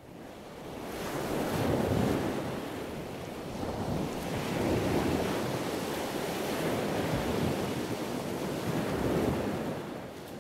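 A rushing noise, like surf or wind, that builds over the first couple of seconds, surges and eases every few seconds, and begins to fade near the end.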